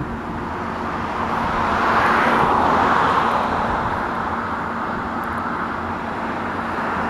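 Road traffic: a passing vehicle's tyre and engine noise swells to a peak about two to three seconds in and fades, and another vehicle approaches near the end, over a faint steady hum.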